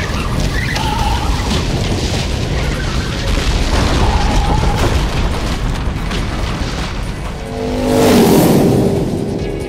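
Action sound effects of a motorcycle charging through a barrage of falling trees: a continuous rumble with repeated crashes, swelling to its loudest about eight seconds in with a sweep that falls in pitch. Background music plays underneath.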